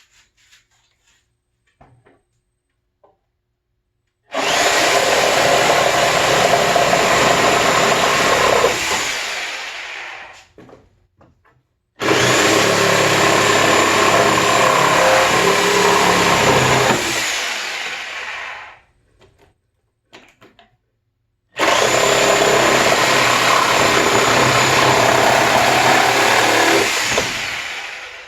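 Reciprocating saw cutting through pallet wood in three runs of about six seconds each, each starting abruptly and trailing off at the end, with short quiet gaps between.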